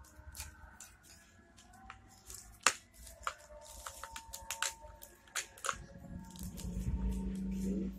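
Plastic clicks, taps and rustles from a termite bait station's plastic parts being handled and closed, with one sharp click about two and a half seconds in. A low steady hum comes in for the last two seconds.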